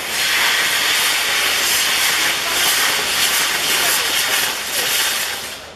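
Ground-firework spark fountains burning with a loud, steady hiss that cuts off abruptly near the end, typical of the gerbs on a Maltese firework wheel.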